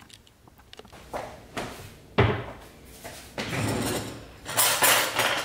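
Kitchen handling noises: a table knife spreading peanut butter on a bagel, a sharp knock on the counter about two seconds in, then the lid of a peanut butter jar being twisted shut with a scraping rub near the end.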